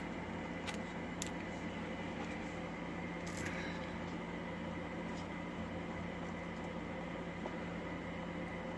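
A few light metallic clinks, the loudest about three and a half seconds in, over a steady background hum: small metal engine parts being handled as the loosened cylinder head bolts come out of a KTM 65's two-stroke engine.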